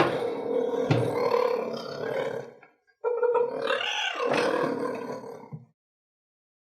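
Cheetah giving two long, rough calls, each lasting two to three seconds, with a brief pause between them.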